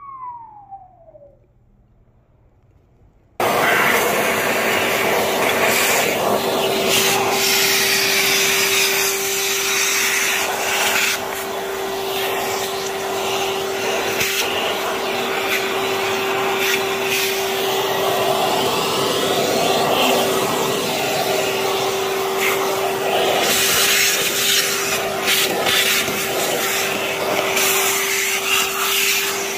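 A short falling whistle, then a vacuum cleaner switches on suddenly about three seconds in and runs steadily with a constant droning tone.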